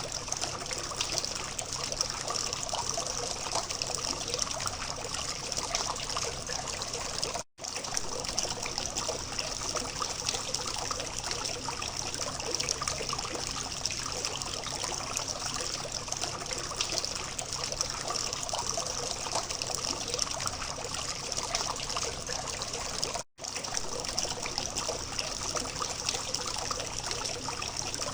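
Water from a small fountain trickling and splashing steadily, cutting out for an instant twice.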